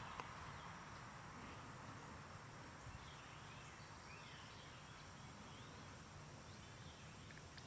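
Faint steady background hiss with a constant high-pitched whine.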